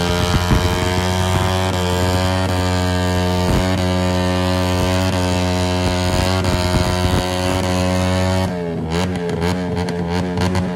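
Motorcycle engine held at high, steady revs while the bike spins its rear tyre in a smoky burnout. About two seconds before the end the note breaks into rapid, stuttering revs.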